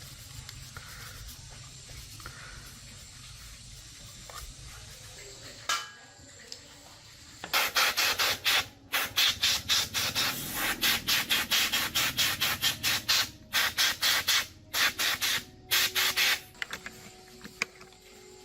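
Rapid back-and-forth abrasive rubbing strokes on a part, several a second, in runs with short pauses. They start about halfway through and stop shortly before the end, after a quieter stretch with a single knock.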